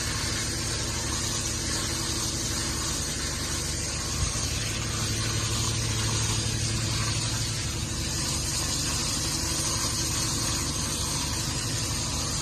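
Steady engine-like hum under even hiss, like a motor vehicle running, with one short knock about four seconds in.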